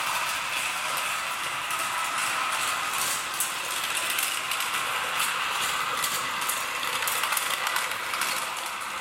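Mamod SL1 live-steam toy locomotive running: a steady steam hiss with rapid exhaust chuffs and a fast, even clatter of the wheels on the track.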